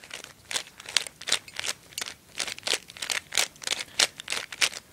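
Dayan Guhong 3x3 speedcube being turned quickly by hand: a rapid run of light plastic clicks and clacks as the layers snap round, about four a second.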